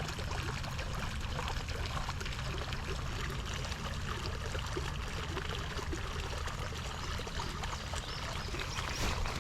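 Floodwater from heavy rain running steadily across the ground in a continuous, even rush.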